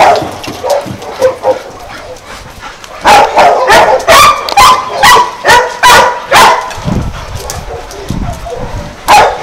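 Dogs barking and yipping during rough play-wrestling: softer yips at first, then a run of loud barks about two a second from about three seconds in, and one more loud bark near the end.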